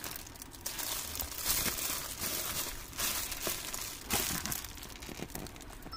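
Plastic parcel wrapping crinkling in irregular rustles as a black plastic courier mailer sealed in clear plastic wrap is handled and turned over.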